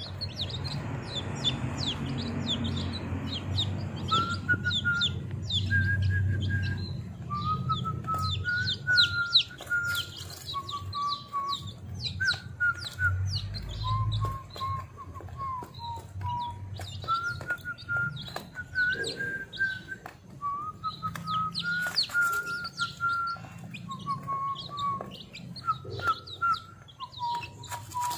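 A brood of week-old chicks peeping continuously: many short, high, falling peeps several times a second. Under them runs a slower series of lower, held whistle-like notes that step up and down in pitch.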